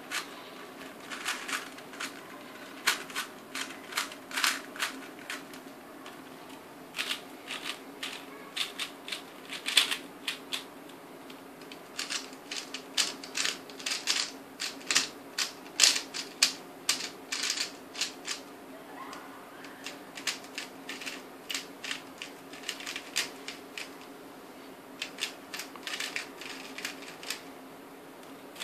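Plastic 3x3 speed cube being turned quickly by hand, runs of rapid clicking and clacking as each layer snaps round during an OLL algorithm, with short pauses between runs.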